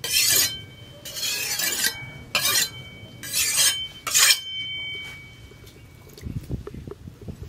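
Steel cleaver blade, made from a tractor's disc-plough disc, being stroked by hand across a sharpening stone. There are about five hissing, rasping scrapes in the first four and a half seconds, each with a thin ringing note from the blade. Then the strokes stop.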